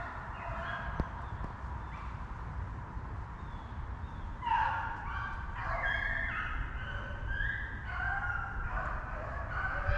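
A pack of rabbit hounds baying on a rabbit's trail: several drawn-out, overlapping voices that grow louder about halfway through, the sign the dogs are on the scent and running it. A single sharp click comes about a second in.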